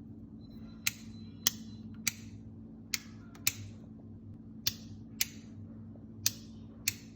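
About nine sharp, irregularly spaced clicks over a steady low hum.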